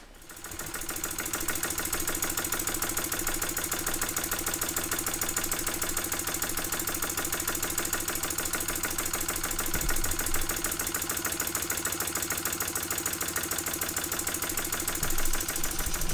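Stuart S50 model mill steam engine running steadily, its valve gear and exhaust giving rapid, even beats.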